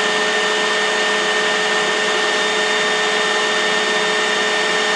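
Steady background hiss with several constant humming tones, unchanging throughout.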